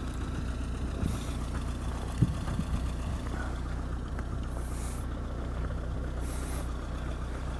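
An engine idling steadily with a low hum, with a few brief hisses.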